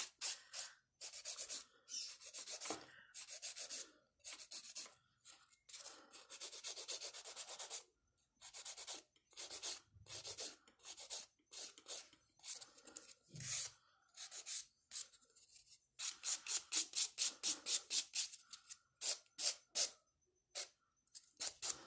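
Hand nail file rasping across a gel nail extension in short back-and-forth strokes, in uneven runs with brief pauses, quickening to about four or five strokes a second near the end.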